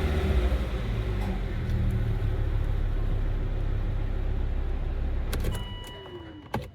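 Volvo C70 T5's turbocharged five-cylinder engine idling just after being started with the brake pedal held down, a test of the brake booster. About five and a half seconds in the engine is switched off and dies away. A short steady electronic tone and a click follow near the end.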